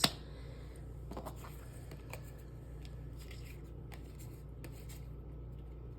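Tarot cards being handled on a table: a few faint rustles and light taps scattered over a steady low room hum.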